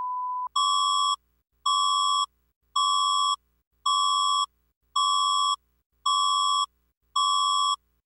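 A steady test tone over colour bars cuts off about half a second in. Then come seven identical high beeps, each a little over half a second long and about a second apart: an emergency warning broadcast alert tone.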